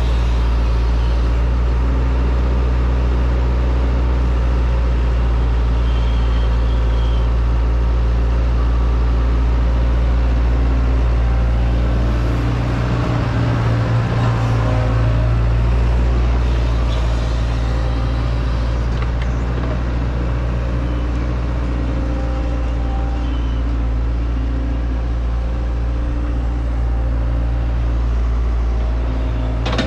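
Hitachi 120 excavator's diesel engine running steadily as it works, with a brief change in its low tone about halfway through.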